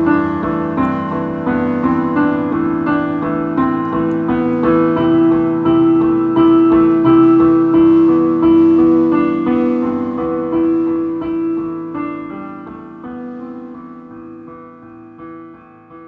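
Solo piano playing, its notes ringing on into one another. The playing grows quieter over the last few seconds and dies away at the end.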